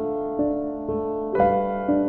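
Background music: a keyboard melody in an electric-piano or piano sound, with new notes struck about twice a second.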